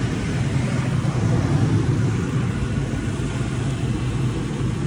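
Toyota Tacoma pickup's engine idling steadily, a constant low hum.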